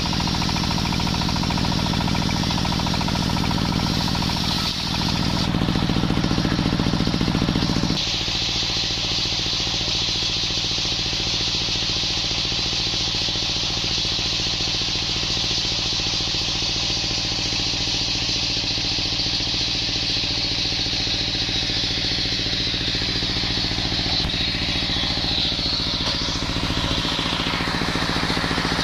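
Stationary single-cylinder diesel engine running steadily, driving a circular sawmill. Its sound changes abruptly about eight seconds in.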